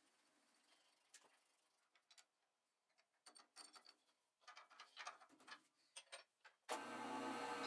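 Faint, irregular light clicks and taps of metal parts and a machine vise being handled. About seven seconds in, a steady hum with several tones starts abruptly.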